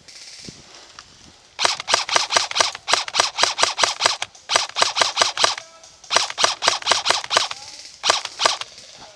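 Airsoft electric rifle firing rapid shots, about six a second, each a sharp mechanical click. The shots come in several strings with short pauses between them.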